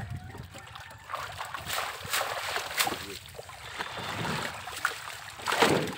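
Shallow pond water splashing and sloshing as a seine net full of fish is hauled through it, with several sharper splashes in the middle and one near the end.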